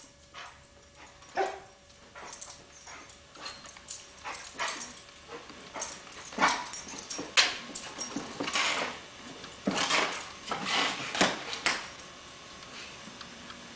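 Yellow Labrador retriever leaping at and mouthing a latex helium balloon: a string of short, irregular sounds from its jumping, breathing and the balloon in its jaws. It quiets near the end.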